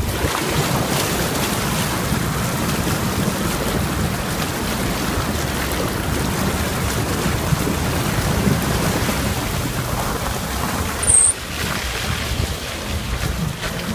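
A car's front wheel ploughing through a shallow river ford, water splashing and spraying against the bodywork over the low sound of the engine running, with wind on the microphone. About eleven seconds in there is a brief high squeak, and the splashing eases as the car comes out onto the wet road.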